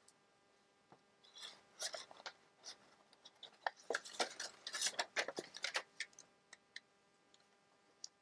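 Small metal brads clicking and rattling as they are handled and picked through, with light rustling: a busy flurry of clicks from about a second in until about six seconds in, then a few scattered clicks.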